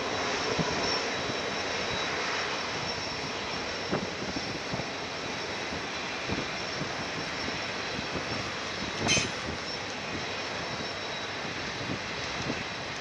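Diesel locomotives of an approaching Union Pacific freight train heard from a distance as a steady drone. A brief high chirp comes about nine seconds in.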